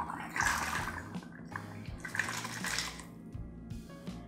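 A shaken Sidecar cocktail being fine-strained from a shaker into a crystal coupe, the liquid pouring and splashing into the glass in two surges. Background music with a repeating bass line underneath.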